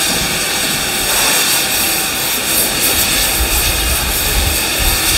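Pacific steam locomotive 3801 standing in steam, a loud steady hiss with faint high steady tones through it; a low rumble joins about three seconds in.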